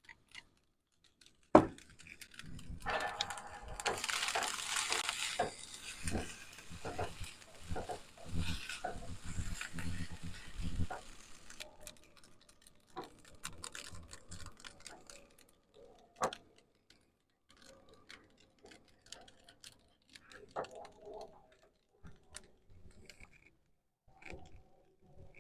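Rustling and handling noises with many small clicks and knocks, busiest for several seconds after a sharp click near the start, then thinning to scattered faint clicks. These are the handling sounds of camp cooking gear and food packaging.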